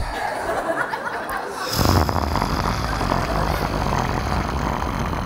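A man imitating a long snore into a stage microphone, drawing breath in only and never breathing out. It rasps, then about two seconds in grows louder and deeper into a steady, rumbling snore.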